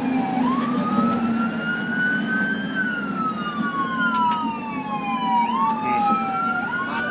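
Fire engine's wail siren heard from inside the cab. It climbs and falls slowly over a few seconds at a time, one wail overlapping the next, over the cab's steady low drone.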